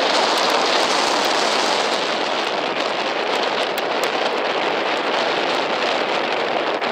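Strong wind buffeting the microphone: a steady, loud rushing noise with scattered small crackles.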